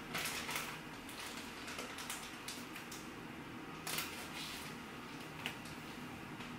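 Faint rustling and light taps of sticker sheets being handled and laid on a pile, the loudest about four seconds in.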